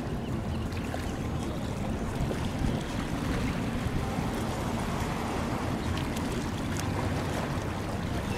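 Steady low rumble and hiss of wind and choppy bay water, with a faint low engine hum from a passing harbour cruise boat.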